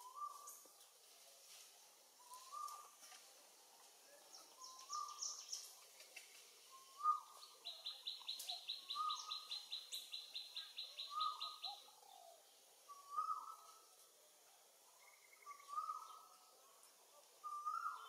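Wild birds calling. One bird repeats a short, low call about every second and a half throughout. A second bird gives a fast, high trill for about four seconds in the middle, with a short burst of high chirps a few seconds before it.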